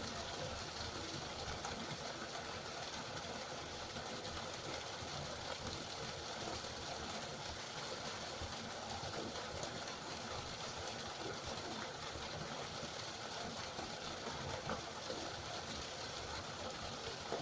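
Steady rain falling, an even hiss with fine drop sounds throughout, and a few slightly louder drops near the end.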